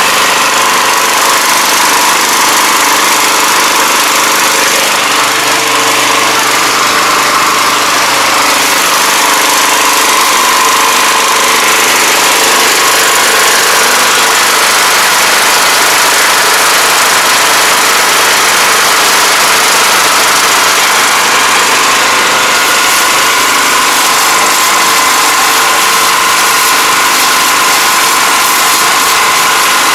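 Small petrol engine of a cart-mounted pressure washer running steadily under load, over the constant hiss of the high-pressure water jet.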